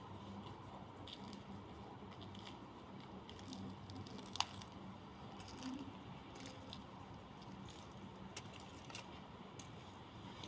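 Faint rain ambience: scattered light ticks of raindrops over a steady low hum, with one sharper click about four and a half seconds in.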